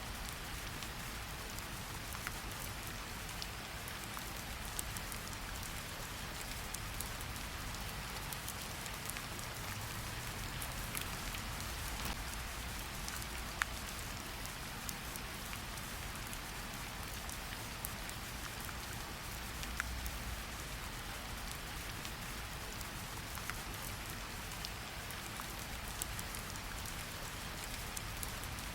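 Steady rain hiss with scattered sharp pops and clicks of a crackling wood fire, over a low rumble.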